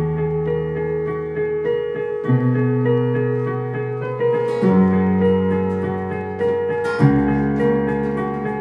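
Instrumental intro to a worship song: electric keyboard holding sustained chords that change about every two and a half seconds, with acoustic guitar strumming along.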